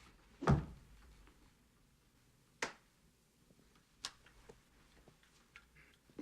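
A dull thump about half a second in, followed by a few sharp, isolated clicks and taps.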